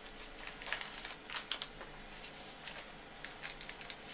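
Faint, scattered clicks and light rustling from plastic bags of miniatures being handled, most of them in the first second and a half.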